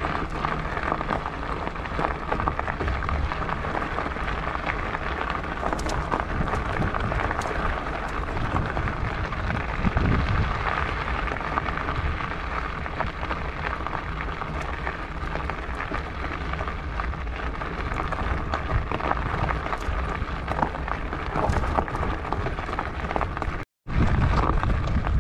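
Fatbike tyres rolling over a gravel track: a steady crunching hiss with scattered small stone clicks, over a low rumble of wind on the handlebar-mounted camera's microphone. The sound drops out for an instant near the end.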